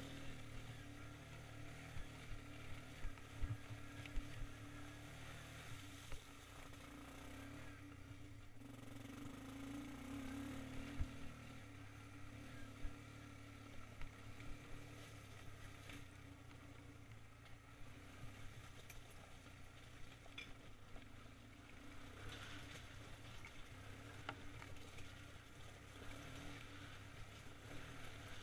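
ATV engine running faintly at low speed. Scattered sharp knocks and rattles come as the machine goes over a rocky trail, clustered in the first few seconds and again about eleven seconds in.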